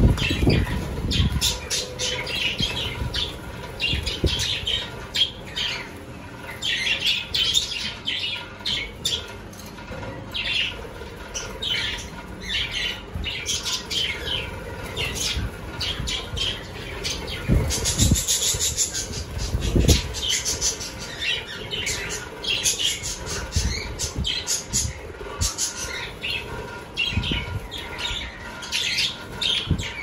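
A flock of budgerigars chattering with continuous short chirps and squawks. A few low thumps come near the start and again about two-thirds of the way in.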